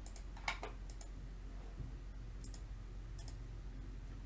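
Computer mouse clicks, several of them in quick press-and-release pairs, the sharpest about half a second in, over a low steady electrical hum.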